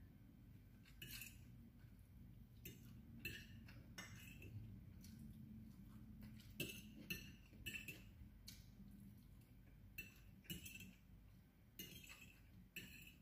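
Faint clinks and scrapes of a metal fork against a ceramic plate as noodles are picked up, about a dozen short taps at irregular intervals.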